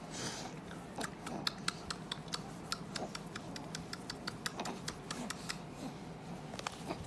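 A run of faint, irregular small clicks, a few a second, starting about a second in and stopping shortly before the end.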